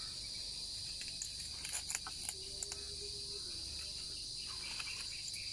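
Steady insect chorus, a constant high-pitched buzz, with a few faint clicks.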